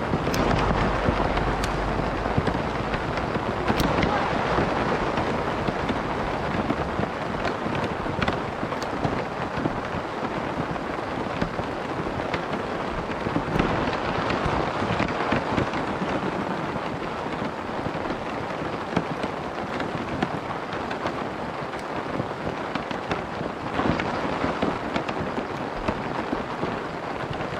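Rain falling on a tent, a dense patter of drops tapping on the fabric, heavier in the first few seconds with a low rumble underneath.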